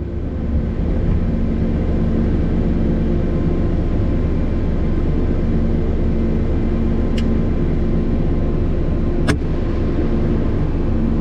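ASV RT-65 Max compact track loader's diesel engine running steadily, heard from inside the closed cab as a constant drone. Two sharp clicks cut through, a faint one about seven seconds in and a louder one about nine seconds in.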